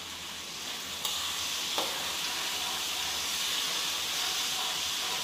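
Chili paste frying in hot oil in a steel wok, sizzling steadily while it is stirred with a metal spatula. The sizzle gets a little louder about a second in.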